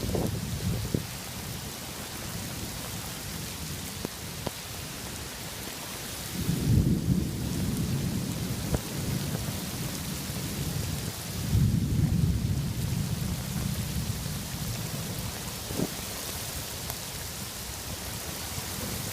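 Heavy rain falling steadily, with two low rolls of thunder, one about seven seconds in and another about twelve seconds in.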